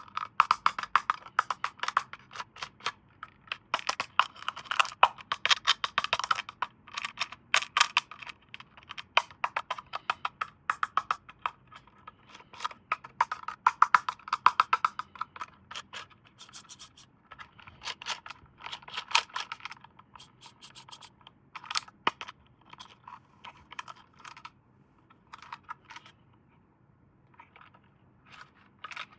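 Plastic toy packaging and parts being handled: a dense run of crinkling, scratching and small clicks that thins out near the end.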